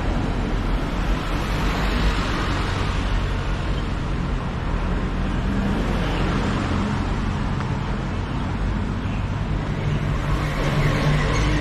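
Street traffic: motor vehicle engines running and tyre noise on a city road, with a low engine hum growing stronger near the end.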